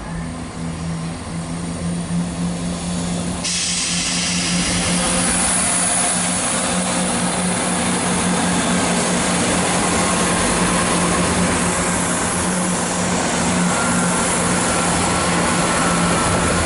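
Chiltern Railways Class 168 diesel multiple unit's engines running with a steady drone as the train pulls out, the sound growing louder and hissier about three seconds in.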